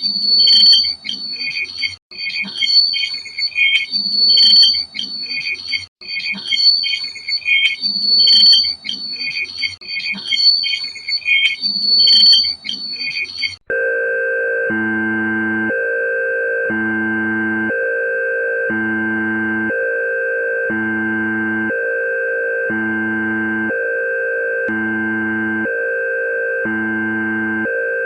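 Synthesized emergency-alert alarm tones. First a high, multi-pitched alarm pattern repeats about every two seconds. About 14 seconds in it switches abruptly to a single steady high tone held over a low chord that pulses about once a second.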